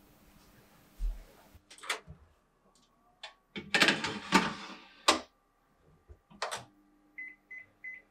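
A metal baking tray slid onto the oven rack with a clatter, the oven door shut with a sharp clack, then short high beeps from the oven's control panel, about three near the end, as the oven is set.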